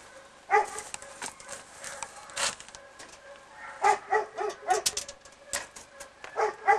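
Short canine barks in quick runs, one about half a second in, four in a row about four seconds in and another run starting near the end, with a few sharp clicks in between.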